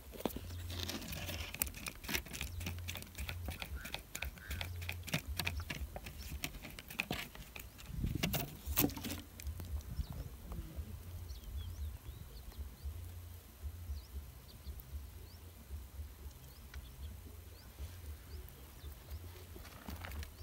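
Close handling noise: irregular clicks and scrapes as fingers rub and tap a rough rock, dense in the first half and loudest about eight seconds in. A steady low wind rumble runs on the microphone, and faint short high chirps follow in the second half.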